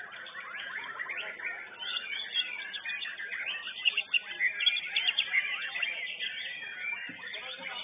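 White-rumped shamas (murai batu) singing in a song contest, many quick chirps and whistles overlapping in a dense, unbroken stream, loudest about four seconds in.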